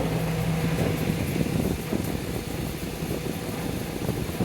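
Montgomery Ward dehumidifier running, its compressor and fan giving a steady hum. From about a second in, an uneven low rumbling and rattling at the front of the unit covers the hum.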